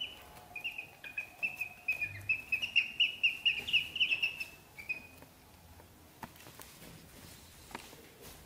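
Ducklings peeping: a quick run of short high peeps over the first five seconds, loudest around the middle, then only a couple of faint clicks.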